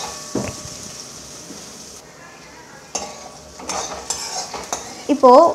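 Sliced onions and green chillies sizzling in hot oil in a metal kadai while a metal spoon stirs and scrapes them around the pan, sautéing the onions toward light golden brown. The sizzle fades after the first couple of seconds, and a few scrapes of the spoon come near the end.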